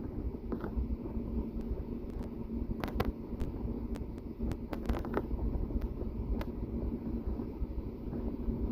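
A car driving, with the steady low rumble of its engine and tyres on the road and a faint steady hum. A few short knocks or rattles come through, the clearest about three seconds in and again about five seconds in.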